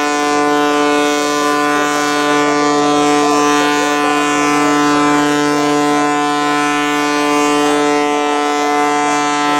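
Aerobatic biplane's piston engine and propeller running at steady high power, giving one loud unwavering note with many overtones.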